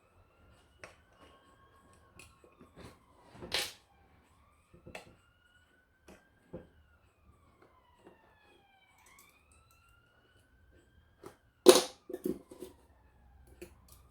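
A faint siren wails slowly up and down, with scattered clicks and two louder sharp knocks, one a few seconds in and one near the end.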